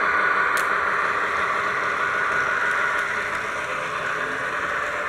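Model train of tank wagons rolling past close by, a steady whirring rush of wheels running on metal track, with a couple of sharp clicks.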